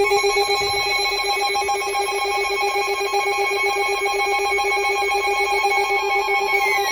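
Emergency alert attention tone from a weather radio broadcast: a loud, steady electronic alarm of several held pitches, sounding continuously. A falling tone begins just before the end, signalling a warning about to be read.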